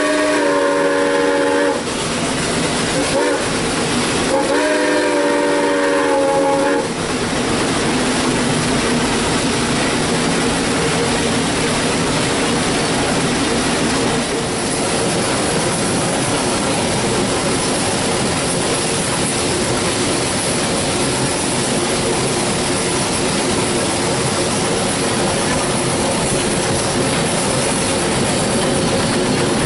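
Steam locomotive S.P.L.CO. #28's whistle heard from inside the cab: a long blast, a short toot and another long blast ending about seven seconds in, the pattern that closes a grade-crossing signal. The locomotive then runs on with a steady cab din of machinery and wheels clattering over rail joints.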